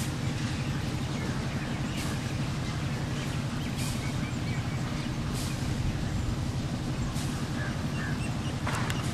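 EMD WDP-4 (GT46PAC) diesel locomotive's two-stroke V16 engine roaring steadily under load as the train climbs a gradient, heard as a continuous low drone, with a few faint clicks.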